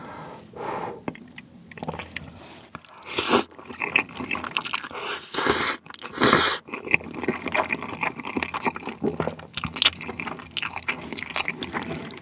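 Close-miked slurping and chewing of pasta noodles and bacon in a spicy tteokbokki cream sauce: three loud slurps about three, five and a half and six and a half seconds in, then steady wet chewing and lip smacks.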